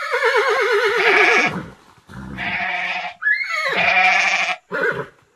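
A run of farm animal calls, four or five in a row with short gaps between them; the first has a shaky, wavering pitch that falls.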